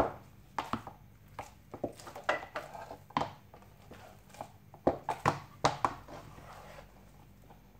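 Thick wooden spoon knocking and scraping against a pot as it mashes and rubs moistened barley flour into a crumbly dough. The knocks are irregular, with a busy run about five seconds in, then quieter toward the end.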